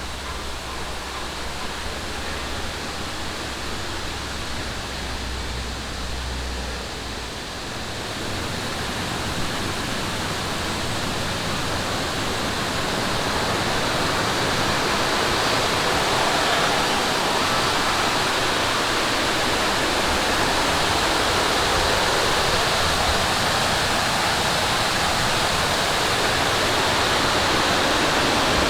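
Rushing water of a mountain valley stream, a steady hiss that grows gradually louder. A low steady hum underlies the first several seconds and stops.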